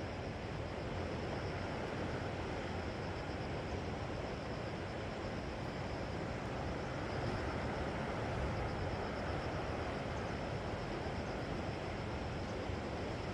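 Seashore ambience: a steady wash of waves and wind, with no distinct events. A faint continuous high trill runs above it.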